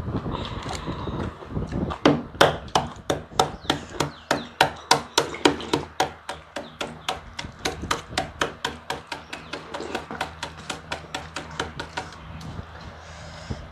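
A fast, even series of sharp knocks, about three or four a second, starting about two seconds in, weakening in the later part and stopping shortly before the end.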